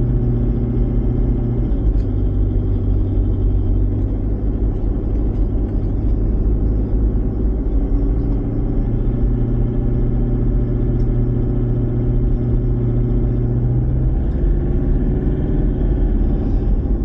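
Vehicle engine running under way with steady road noise. Its low hum shifts in pitch a few times as the speed changes.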